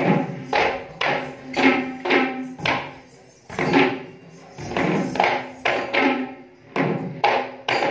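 Kandyan geta bera drums struck by hand in a fast, uneven rhythm, several drummers together, each stroke ringing briefly with a low pitched tone. There is a short lull about three seconds in before the strokes pick up again.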